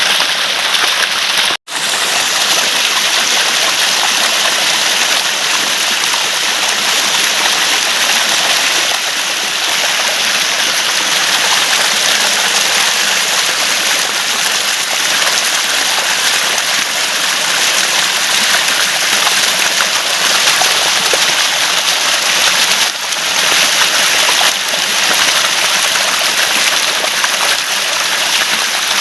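Flowing water gurgling steadily, like a small stream running over stones. It cuts out for an instant about a second and a half in.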